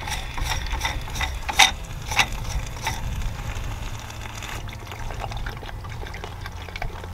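Water trickling and air gurgling out through the loosened hand-tight union of a Pentair IntelliChlor salt cell as the pool plumbing drains, with a run of sharp clicks and pops in the first three seconds.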